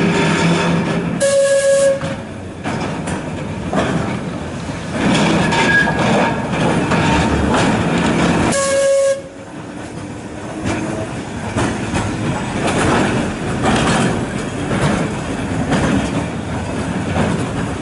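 A tram arriving along the rails with a steady motor hum, sounding a short pitched warning signal twice about seven seconds apart, its wheels clattering over rail joints.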